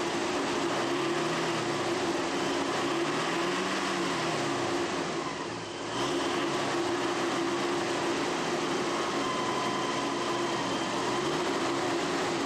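Engine running on gasoline vapor fed from a homemade vaporizing chamber, a steady hum whose pitch slowly rises and falls a few times. The sound dips briefly about five seconds in and comes back abruptly about a second later.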